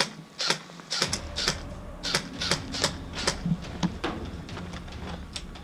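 Airsoft guns firing: a run of sharp, irregular clicks and snaps, about four a second, over a low rumble that comes in about a second in.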